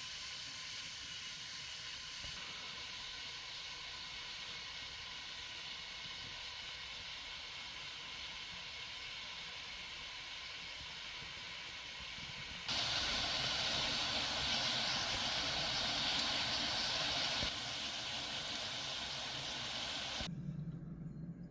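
A steady hiss that jumps abruptly louder about two-thirds of the way in, then cuts off near the end, leaving a faint low hum.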